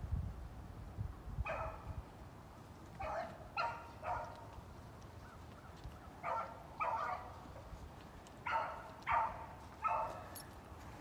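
Beagle baying on a rabbit's track: about nine short bawls in irregular groups of two or three.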